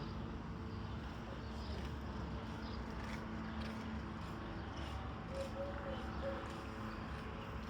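A steady low rumble with faint voices in the background, briefly rising a little more than five seconds in.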